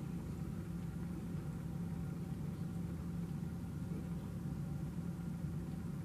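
A steady low hum, like a motor or appliance running in the room.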